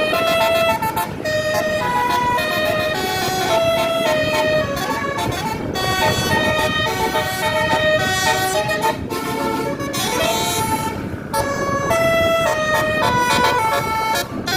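Tour bus's basuri telolet horn playing a fast tune of changing notes, loud and continuous, with a brief burst of noise about ten seconds in.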